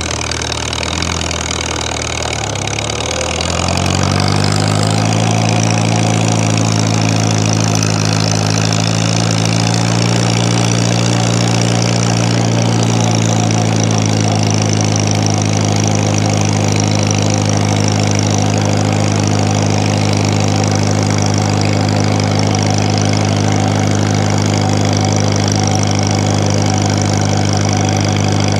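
1950 Farmall Cub's four-cylinder flathead engine pulling the tractor along in third gear: the revs sag after the shift, climb back over about the first four seconds, then hold steady.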